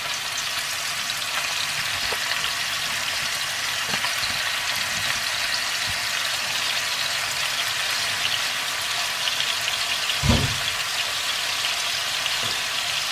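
Sausage and freshly added, drained dandelion greens frying in olive oil in a frying pan: a steady sizzle, with one dull knock about ten seconds in.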